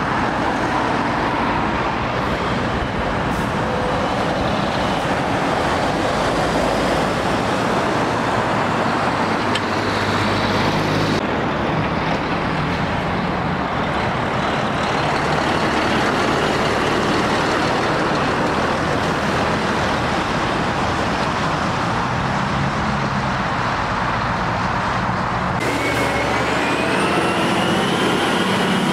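Heavy articulated lorries' diesel engines and tyres passing close by, mixed with car traffic. The sound shifts abruptly twice, and near the end a high whistle rises and then falls as the nearest lorry goes by.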